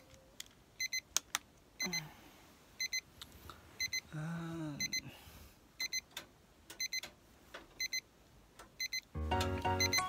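Alarm beeping faintly in short double beeps, about one pair a second. A brief low wavering sound comes about four seconds in, and music with a beat starts near the end.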